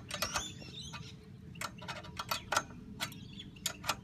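Ratchet spanner clicking in irregular short runs while tightening the bolt of a tripod antenna mount's upper bracket clamp.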